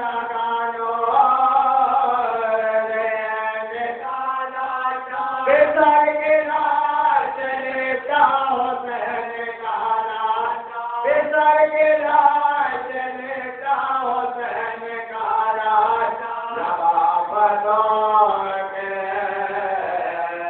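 Chanted singing: a voice holding long, drawn-out notes that slide up and down in pitch, phrase after phrase.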